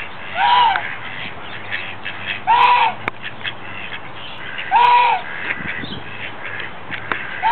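Mallard quacking: three loud, harsh quacks about two seconds apart, with mallard ducklings giving many short, high peeps between them.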